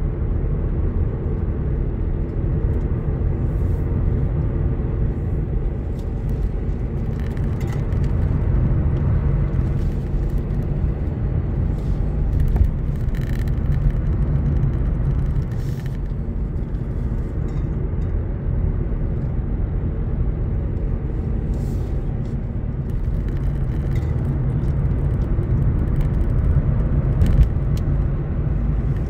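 A car being driven, heard from inside the cabin: a steady low rumble of engine and tyre noise on the road.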